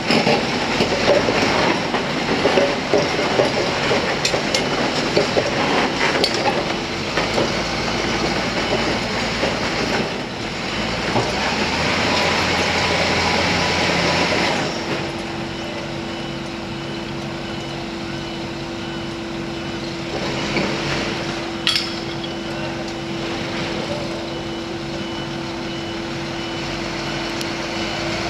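Crawler earth drill rig travelling on its steel tracks, with clanking and rattling track noise over the diesel engine for about the first half. It then settles to a quieter, steady engine hum with a held tone.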